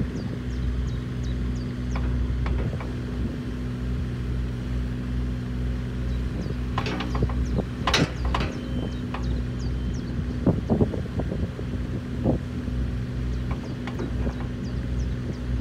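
JCB 65R-1 mini excavator's diesel engine running steadily under hydraulic load as the boom and bucket work, with scattered metallic clanks and knocks from the bucket and linkage, the sharpest about eight seconds in and a cluster a little before eleven seconds.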